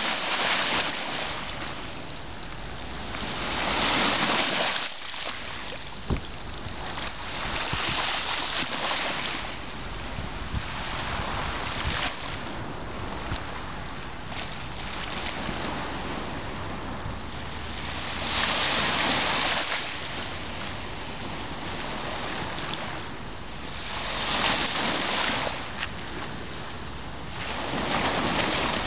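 Small waves breaking and washing up a seaweed-covered beach. Each wash swells up to a hiss and fades, every four to six seconds.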